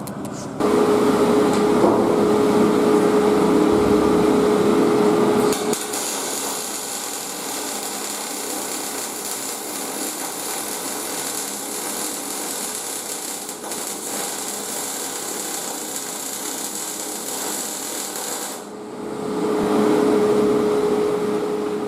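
Metalwork on a steel boat hull. A power tool with a steady hum runs for about five seconds, then a steady hissing crackle of arc welding goes on for about thirteen seconds, and the humming tool starts again near the end.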